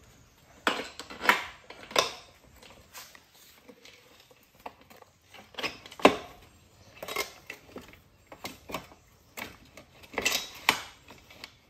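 Irregular metallic clinks and knocks, a dozen or so, the sharpest about six seconds in, as the rear wheel and axle of a Yamaha YZ125 dirt bike are worked into place in the swingarm.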